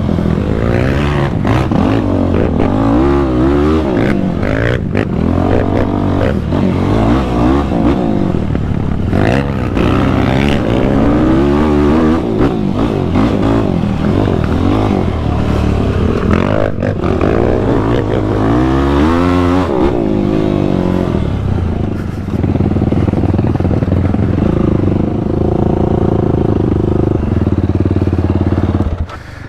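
Yamaha YFZ450R quad's single-cylinder four-stroke engine revved hard, its pitch climbing and falling over and over under changing throttle, with knocks and clatter from the machine being ridden through brush and branches. The engine falls away near the end.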